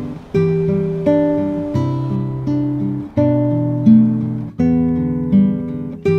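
Background music: acoustic guitar plucking notes and chords at a steady, unhurried pace, each note ringing out and fading before the next.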